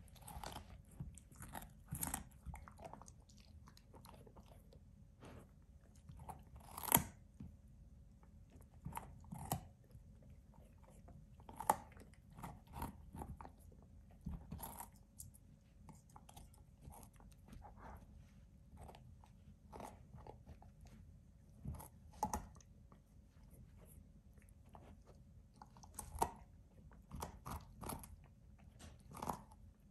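A puppy chewing and biting raw carrot: irregular crisp crunches as its teeth break the carrot, the loudest about seven seconds in.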